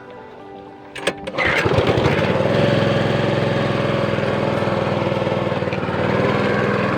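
A small boat engine starting up, catching about a second and a half in after a few clicks, then running steadily at a fast, even beat.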